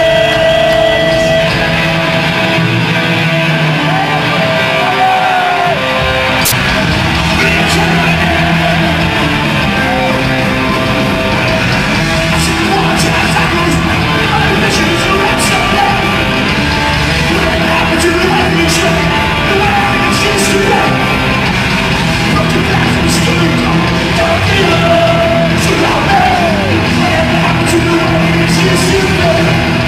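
Hardcore punk band playing live: distorted electric guitars, bass and drums with frequent cymbal crashes, and a voice yelling over the music. The low end drops out for a few seconds near the start, then the full band comes in at about six seconds.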